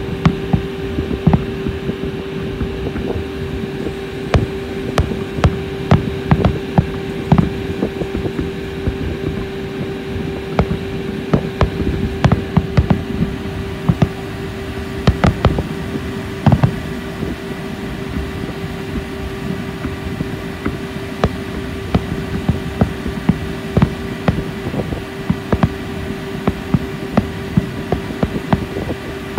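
Fireworks exploding: a rapid, irregular string of sharp bangs and pops, several a second, over a steady low hum.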